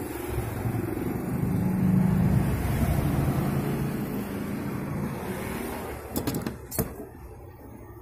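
A motor vehicle's engine hum swells, loudest about two seconds in, and slowly fades. A few sharp clicks come near the end.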